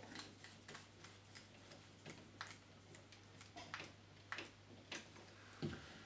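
Faint, scattered small clicks and ticks of a screwdriver tightening the neutral terminal screw on a plastic double socket faceplate and copper wires being handled, over a faint steady low hum.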